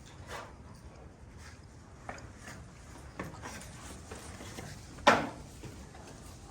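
A hammer driving wire staples into a wooden post to hold an electrical cable: a few separate knocks, the loudest about five seconds in.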